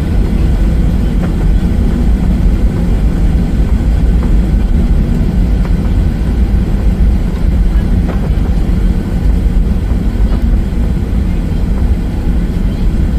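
Steady, loud low rumble inside a jet airliner's cabin with the engines running, on the ground before takeoff.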